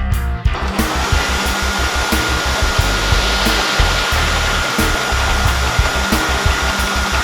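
A loud, steady motorised rushing noise with a high whine that rises briefly about a second in and then holds steady, over background music with a steady beat.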